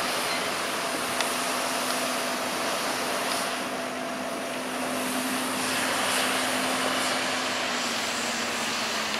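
JCB 418S wheel loader's diesel engine running steadily as it drives over the silage clamp, a held hum that dips slightly in pitch near the end.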